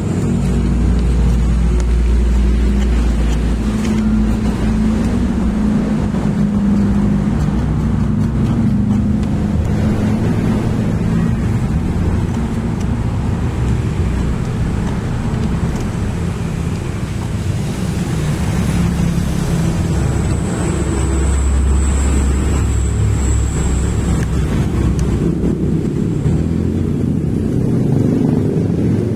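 An engine running steadily at a constant pitch and level, with a faint high whine over it for a few seconds past the middle.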